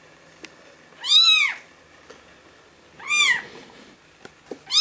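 Newborn kitten crying loudly, calling for its mother: three high mews, each rising and falling in pitch, about two seconds apart.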